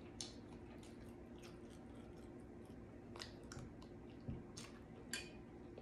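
A person chewing food, faint, with a handful of short wet mouth clicks and smacks spaced roughly a second apart.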